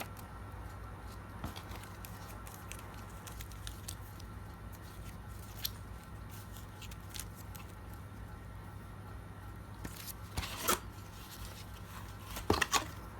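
Packaging being handled during an unboxing: scattered light clicks and rustles over a steady low hum, with two short clusters of louder handling noise in the last few seconds.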